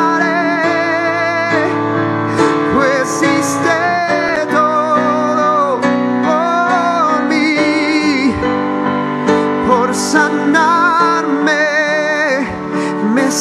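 Slow worship music: a man singing long held notes with vibrato over sustained chords he plays on a digital piano keyboard.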